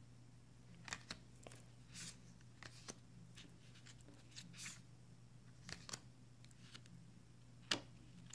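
Oracle cards being picked up, flipped and slid across a wooden tabletop: soft, scattered swishes and taps, with one sharper tap near the end.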